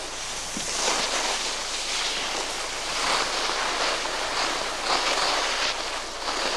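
Skis hissing and scraping over packed snow, swelling in surges about every two seconds, with wind rushing over the camcorder microphone.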